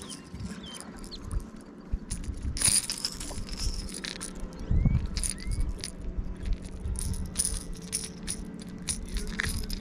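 Irregular metallic rattling and clicking as a small largemouth bass is handled and a lipless rattle-bait crankbait with treble hooks is shaken and worked free of its mouth, with a couple of louder knocks about three and five seconds in.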